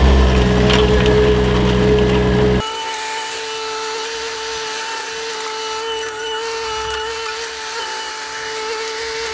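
Bobcat E20 mini excavator running while it digs. A loud, low engine drone fills the first two and a half seconds, then changes abruptly to a steady, slightly wavering high whine.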